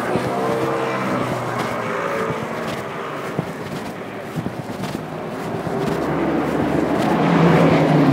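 Road traffic passing on a city street: one vehicle's engine and tyres fading away after the start, then a louder one building to a peak near the end.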